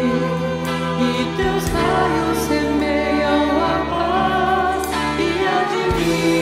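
A devotional song in Portuguese: a woman's lead voice and a small group of backing singers sing over sustained instrumental accompaniment, including flute.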